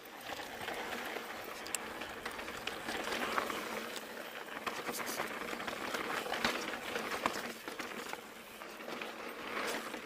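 Pivot Switchblade mountain bike on plus tyres rolling over a rocky dirt trail: a steady rush of tyre noise on dirt and stone, with scattered sharp clicks and knocks from the bike.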